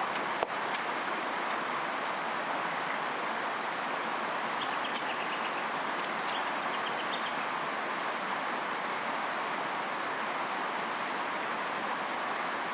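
Steady rush of a flowing river, with sharp pops and crackles from a wood campfire scattered through it and a soft thump about half a second in. A bird chirps a short run of notes near the middle.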